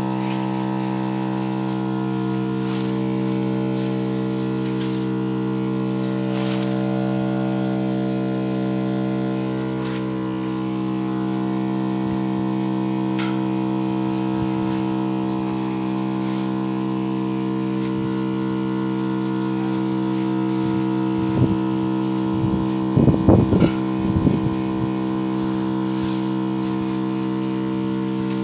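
Small electric water pump running with a steady hum, feeding a hose spray wand. A few brief louder sounds break in between about 21 and 25 seconds in.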